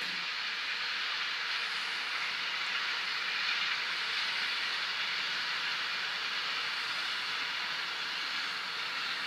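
Freight train of container wagons rolling past behind an electric locomotive: a steady rushing noise of wheels on rails, swelling slightly around the middle.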